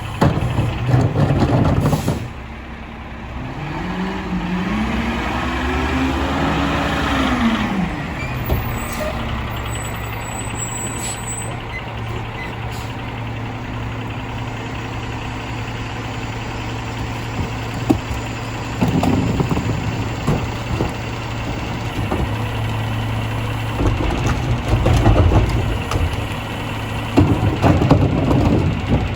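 Mack LR rear-loader garbage truck's diesel engine running steadily. A few seconds in, its pitch rises and falls once over about five seconds as the engine revs up and back down. Several louder bursts of clanking and engine noise follow in the second half as the McNeilus rear loader works.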